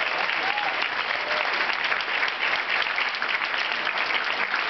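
A large audience applauding, a steady dense clapping.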